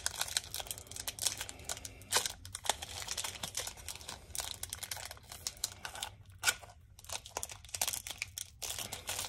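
The wrapper of an Upper Deck hockey card pack crinkling and tearing as it is opened by hand: a run of irregular crackles, with one sharper crack about six and a half seconds in.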